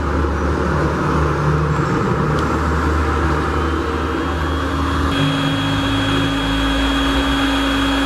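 A 2000-watt electric heat gun running, its fan blowing with a steady whir and hum, being tested after its broken heating-element wire was repaired. About five seconds in the hum changes pitch and a thin high whine comes in.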